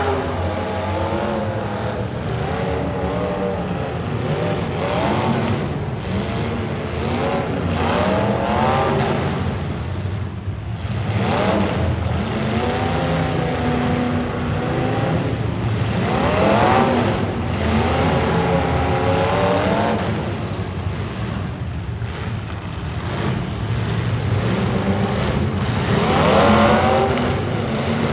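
Demolition derby car engines running loud and revving hard again and again, the pitch climbing in repeated surges every few seconds over a steady engine rumble.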